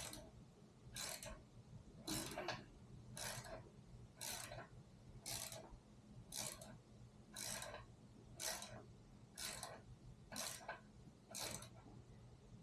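Hand ratchet wrench turning out a long, tight bolt: a short burst of ratchet clicks on each back-swing, about once a second.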